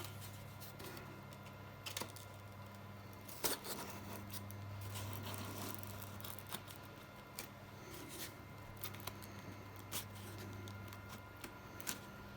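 Scattered light clicks and taps from hands handling and fitting the foam and plastic parts of an RC model airplane, over a steady low hum.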